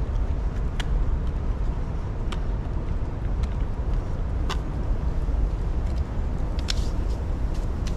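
Steady low outdoor rumble with a few faint sharp clicks scattered through it.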